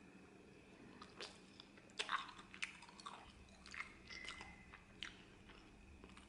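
Crisp crunching and crackling of baked pizza crust close to the microphone: a quick run of sharp crunches over a few seconds, the loudest about two seconds in.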